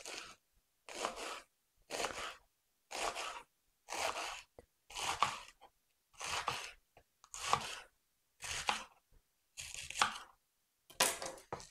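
Chef's knife slicing through crisp romaine lettuce on a wooden cutting board: about ten crunchy cuts, roughly one a second.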